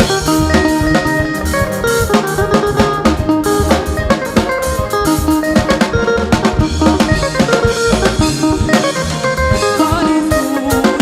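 Live gospel band music: a drum kit with snare and bass drum keeping a steady beat under guitar and keyboard notes.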